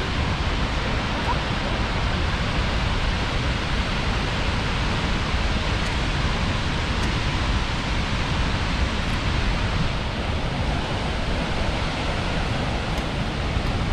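Skógafoss waterfall: a steady rush of falling water, even and unbroken, with a heavy low rumble.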